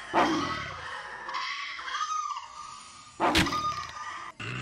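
A Maltese dog barking sharply twice, about three seconds apart, as it threatens a cat.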